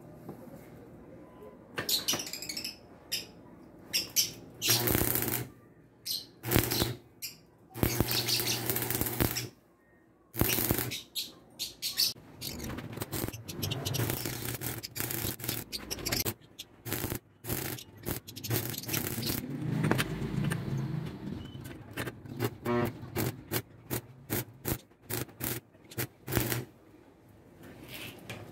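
Electric arc welding on steel square tubing: the arc is struck and broken again and again in bursts of noise with a low hum under them. The bursts last a second or two in the first half, then come short and quick in the second half, as tack welds are laid on the bracket joint.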